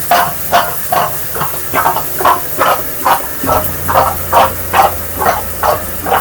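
Newly fitted shower running, its spray hissing in even surges about two to three times a second. A low pump hum comes in about halfway.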